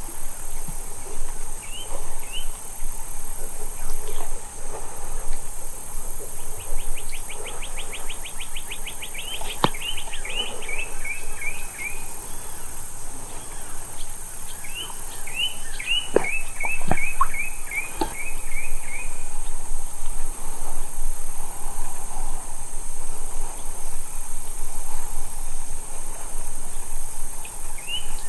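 Steady high-pitched insect drone with birds calling over it: a rapid trill about seven seconds in, then runs of short chirps, and a few sharp clicks in the middle.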